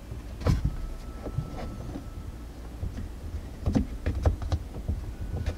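Scattered light clicks and knocks of plastic being handled as a clip-on camera mirror is pressed onto a car's rear-view mirror and its strap hooked around it, busiest about a second in and again near the end.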